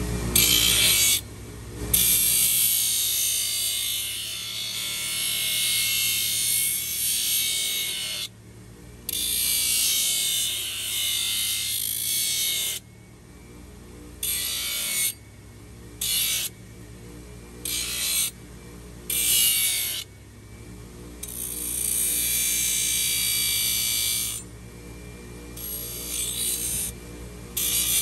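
A steel horseshoe ground on a running bench belt grinder: a harsh grinding rasp each time the shoe is pressed to the belt, in several long passes with a run of short strokes about a second apart in the middle, over the steady hum of the grinder motor.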